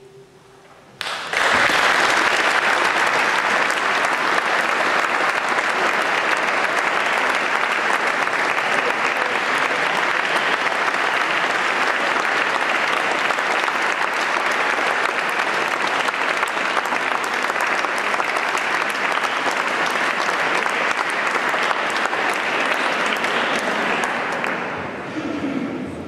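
Audience applauding: the clapping starts suddenly about a second in, holds steady, then dies away near the end.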